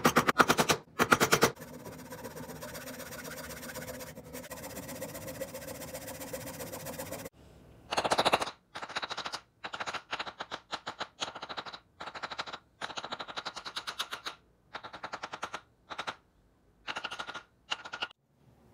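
A small power tool running with a fast rattling beat. It starts loud, runs more steadily for several seconds, then is run in a dozen or so short bursts with brief pauses between.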